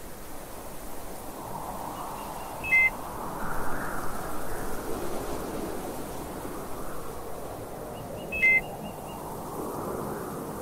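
Two short electronic beeps, each a quick cluster of high tones, about six seconds apart, over a steady hiss-like noise.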